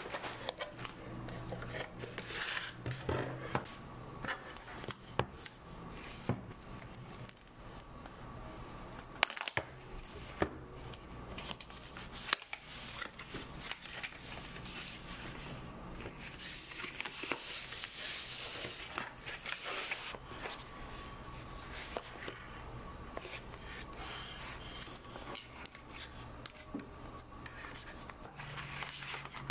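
Cardboard and paper packaging being handled and opened: rustling, scraping and tearing as an Apple Watch box is lifted from its shipping carton and its paper pull tabs are torn away. Scattered clicks and taps run through it, the sharpest about nine seconds in, with a longer stretch of tearing rustle in the middle.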